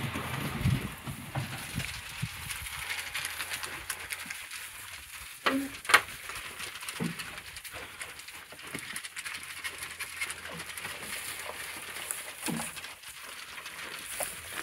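Young goats crunching grain at a feed trough and shuffling in straw bedding, a steady crackly rustle with scattered small clicks and a sharp knock about six seconds in.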